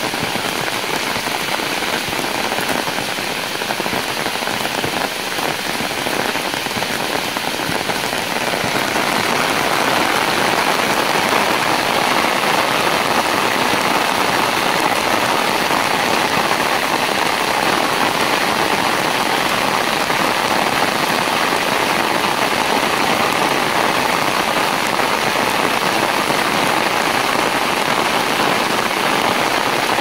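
Heavy rain falling steadily on a concrete yard and the plants around it, a dense even hiss that grows a little louder about nine seconds in.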